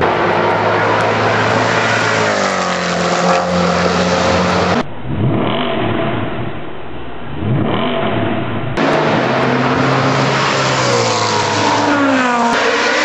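High-performance car engines revving and accelerating hard, in three separate recordings cut together. In the middle one, cars speed past and their engine notes sweep down in pitch as they go by.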